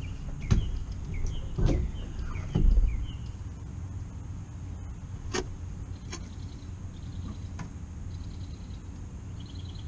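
Knocks from handling the outboard motor and the boat: three dull thumps in the first three seconds, then a few sharp, lighter clicks.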